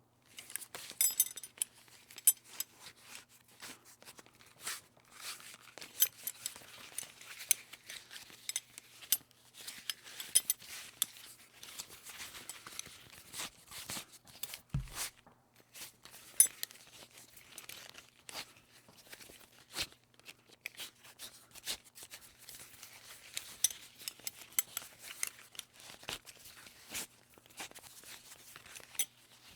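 A metal buckle being handled and fastened over and over: irregular clicks, metallic clinks and jingles with rustling between them, and one low thump about halfway.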